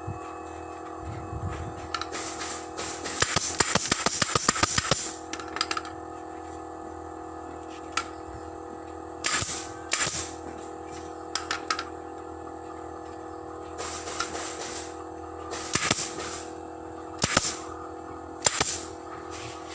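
Background music with steady tones. Over it, a pneumatic staple gun fires sharp shots: a fast run of a dozen or so about three to five seconds in, then single shots with short bursts of air every second or more.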